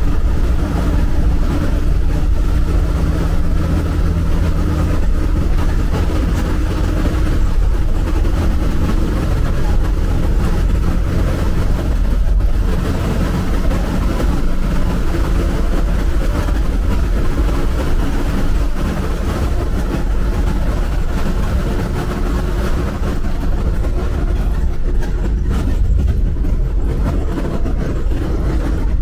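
Bus engine running steadily under road and tyre noise while the bus drives along a highway, its pitch shifting slightly a few times.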